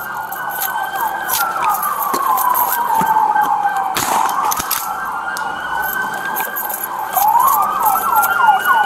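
Police car siren wailing, slowly rising and falling in pitch, with a faster warble of quick falling sweeps over it. About four seconds in, a single sharp bang from a beanbag shotgun being fired.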